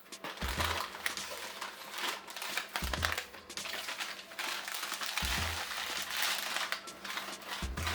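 Packaging being unwrapped and handled by hand, crinkling and rustling in irregular bursts.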